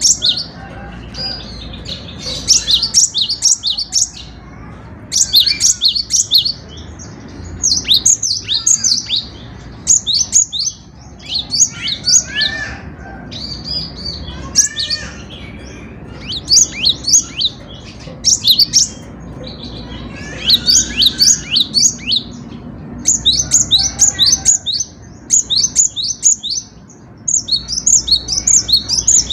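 Cinereous tit (gelatik batu) singing: phrase after phrase of quick, sharp, high repeated notes, each burst lasting a second or two, with short pauses between.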